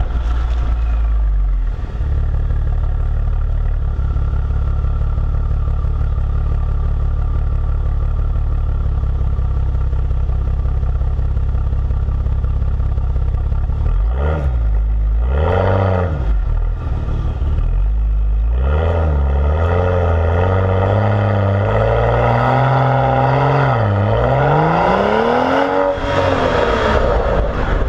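BMW 335xi's turbocharged inline-six heard through a Corsa axle-back exhaust while driving. It holds a steady low drone at cruise for the first half, then the revs rise and fall a few times, climb under acceleration with a drop about three quarters through, and fall again near the end.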